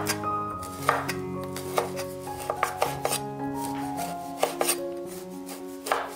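Chinese cleaver slicing through firm cured pork belly and knocking on a wooden cutting board, in irregular strokes about once a second, some in quick clusters.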